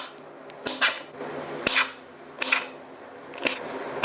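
Kitchen knife cutting capsicum and onion on a chopping board: four separate cuts, about one a second.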